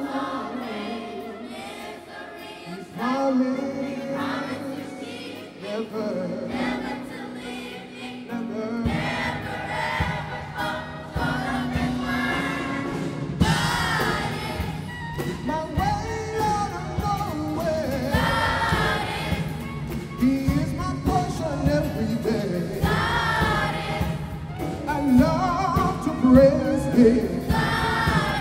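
Children's choir singing a gospel song with instrumental backing. The accompaniment fills out with a low bass about nine seconds in, and a steady beat runs from about halfway.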